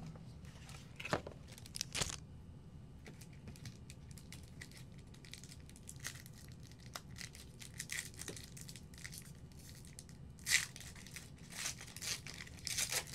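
A trading-card pack wrapper crinkling and tearing as it is handled, in short scattered bursts of rustle and crackle, with the strongest ones near the end.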